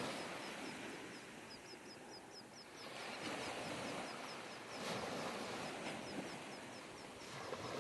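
A small bird chirping rapidly and repeatedly, high and quick, about four chirps a second. Under it is a steady background hiss of outdoor noise.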